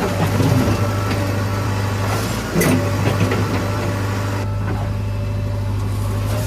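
Heavy diesel engine running steadily with a deep drone, with a sharp knock about two and a half seconds in.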